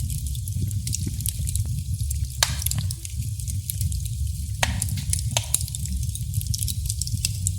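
Wood fire burning in a fireplace: a steady low rumble of the flames with irregular sharp crackles and pops from the burning logs, a couple of louder pops a few seconds apart.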